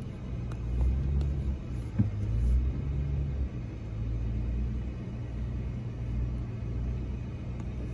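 The 2021 Ram 1500 TRX's supercharged 6.2-litre V8 running at low revs, a steady low rumble that swells and eases slightly. There is a single sharp knock about two seconds in.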